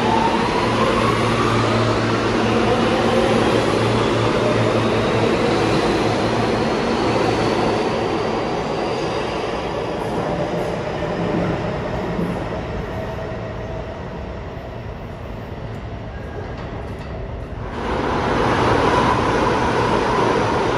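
New York City subway train pulling out, its motors whining upward in pitch as it picks up speed over rail and wheel noise, then fading as it draws away. About eighteen seconds in, another train's noise comes in suddenly and loudly, with a steady whine.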